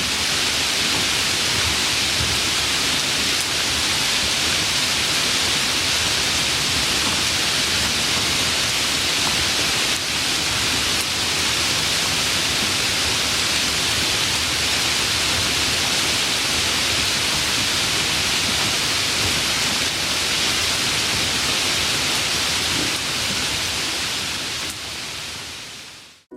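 Steady, even rain sound, a dense hiss with no breaks, fading out in the last second or two.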